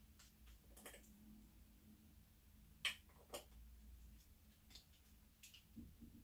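Faint clicks and light handling noise from a Sony a7 III mirrorless camera body being turned over in the hands, with two sharper clicks about three seconds in and a few soft ticks after, over a faint low room hum.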